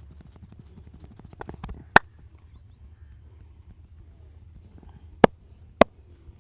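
Sharp percussive cracks from a head and back massage. A few soft taps lead into one loud crack about two seconds in, and two more loud cracks come about half a second apart near the end.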